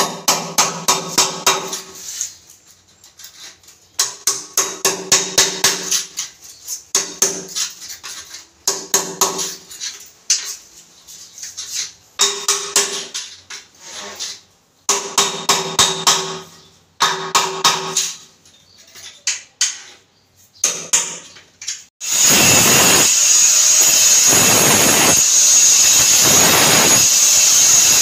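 Quick runs of hammer blows at the base of a toilet bowl, several strikes a second with a ringing tone, broken by short pauses: work to free the old bowl from the floor. About three quarters of the way through, an electric angle grinder starts cutting at the bowl's base with a loud steady whine.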